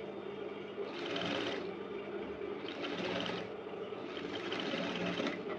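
A sewing machine stitching in three short runs, each lasting about half a second to a second, over a steady hum. It is sewing bias binding onto a neckline.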